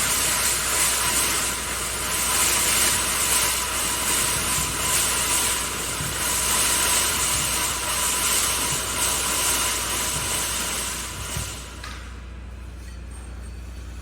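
Rebar mesh welding machine running with a steady mechanical hiss and a faint repeating pulse about once a second. About twelve seconds in it drops to a low hum.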